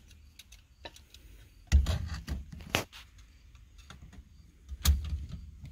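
Scattered knocks and metallic clicks of steering-wheel hub parts and screws being handled and fitted. Two louder thumps come about two seconds in and again near the end, with lighter clicks between them.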